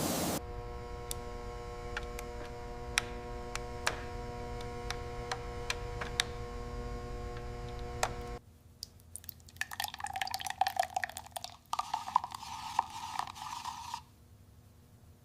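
A steady mechanical hum with scattered light clicks cuts off about eight seconds in. A few seconds of scratchy rubbing or handling noise follow and stop near the end.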